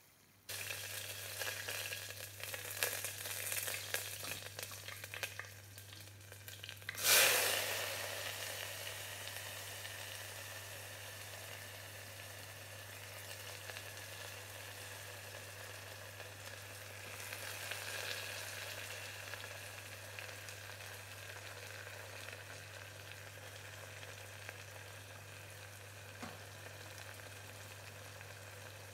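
Tempering frying in hot oil in an aluminium pressure cooker: crackling and popping at first, then a sudden loud burst of sizzling about seven seconds in as chopped onions and dried red chillies hit the oil. The sizzle then settles into a steady fry that slowly dies down.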